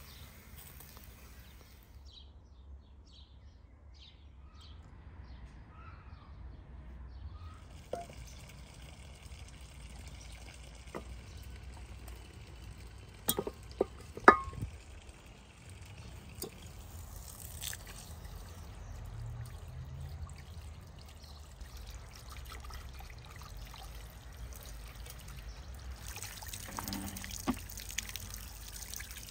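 Water pouring and trickling as raw lamb heads are rinsed on a metal tray, with a few sharp knocks about halfway through.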